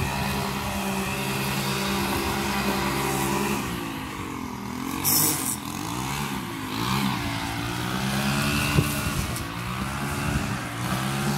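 Small engine of a handheld gas lawn tool running, steady at first, then its pitch rising and falling as the throttle is worked from about four seconds in. A short hiss comes about five seconds in.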